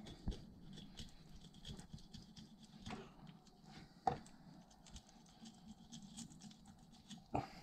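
Knife cutting and scraping through a stiff catfish on a wooden cutting board, with soft scratching and crackling and a few sharp knocks against the board.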